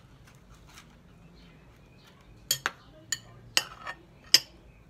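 Metal spoon clinking against a glass dish while scooping seasoned ground taco meat: a quiet stretch, then about six sharp clinks in the second half, the last one the loudest.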